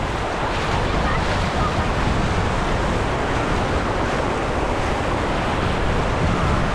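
Sea water churning and splashing around legs wading knee-deep through small waves, with wind on the microphone: a steady, even wash of noise.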